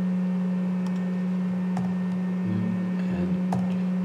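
Three separate keystrokes on a laptop's keyboard cover, about a second apart, as a short code is typed in, over a steady low hum.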